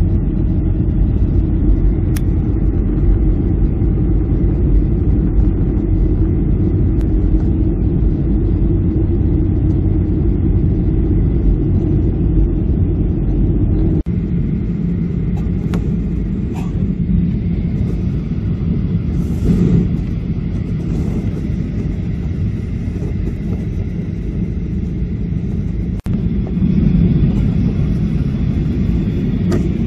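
Jet airliner cabin noise heard from a window seat in flight: a steady low rumble of the engines and air rushing past the fuselage, dropping out for an instant twice.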